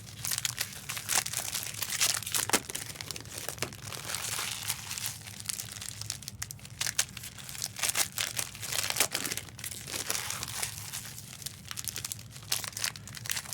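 Trading-card pack wrappers crinkling and tearing as packs are opened by hand: a continuous run of irregular rustles and crackles, over a low steady hum.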